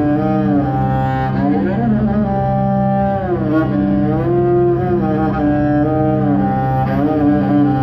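Yaylı tanbur, a bowed long-necked fretted lute, played solo in an improvised taksim in makam Nihavend: a sliding melody line over a steady low drone.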